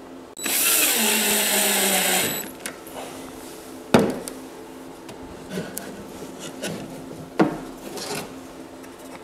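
A cordless drill/driver runs for about two seconds driving a screw as a cabinet door is attached, its motor pitch sagging slightly as the screw draws tight. About four seconds in, a sharp knock as the drill is set down on the wooden bench. Later there are lighter knocks and rubbing as wood blocks are handled.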